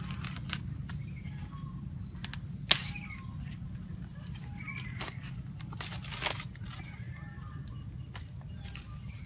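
A fresh banana leaf being cut and torn with a knife: a few short crinkly rips and scattered clicks, with one sharp click about three seconds in. A steady low hum and faint chirps run underneath.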